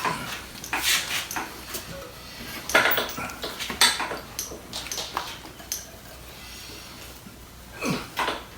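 Metal clinking and knocking, a dozen or so short irregular strikes in small clusters, as motorcycle front fork tubes and tools are handled and worked back up into the fork clamps.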